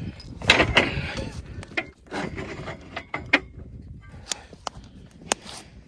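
Cooking gear and food being handled: scattered wooden knocks and sharp clicks, with scraping in the first second.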